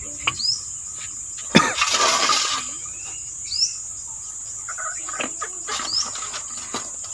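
Crickets chirring steadily while a bird gives a short rising whistle three times. A sharp knock about one and a half seconds in is followed by about a second of rustling, with a few lighter clicks later, as Malabar spinach stalks are handled and cut on a boti, a floor-standing kitchen blade.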